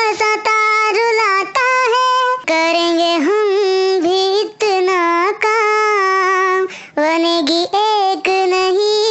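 A high voice singing a Hindi song melody, holding long notes that bend in pitch, with short breaks between phrases.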